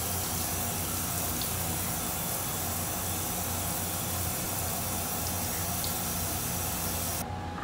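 Shower running, with water hissing out in a steady spray from a split in the shower hose where it joins the handset's metal fitting. The hose has cracked at its most stressed point, a leak that a new washer does not cure. The hiss cuts off suddenly near the end.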